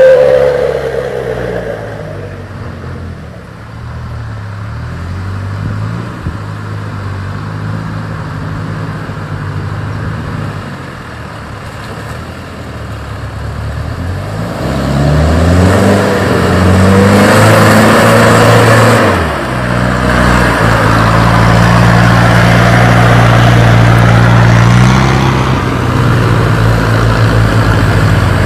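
Diesel truck engines labouring through deep mud under heavy load, their pitch rising and falling as the drivers work the throttle. The engines grow louder about halfway through, with a rising rev, then hold a loud steady pull.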